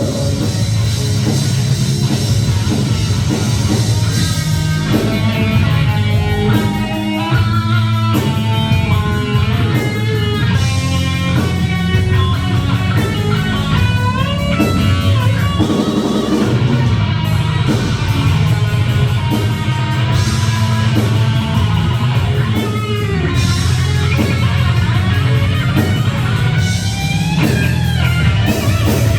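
Rock band playing an instrumental passage: a lead guitar plays quick runs of notes with bends over steady bass and drums.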